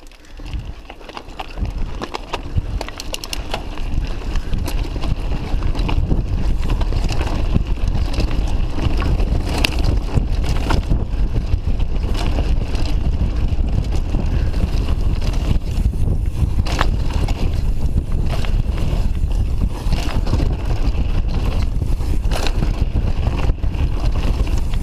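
Mountain bike descending a rocky dirt trail at speed: heavy wind rumble on the microphone, with tyres crunching over gravel and sharp knocks and rattles from the bike as it hits stones. The rumble builds over the first few seconds as the bike picks up speed, then stays steady.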